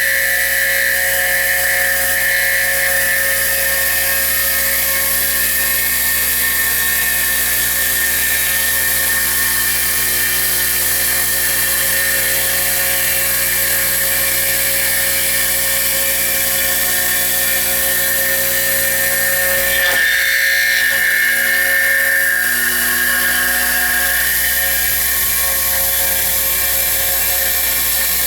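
MLA A40/A45 copy router's high-speed spindle running steadily with a high whine while milling a door lock pocket into a fire-resistant steel profile. There is a slight shift in its tone about twenty seconds in.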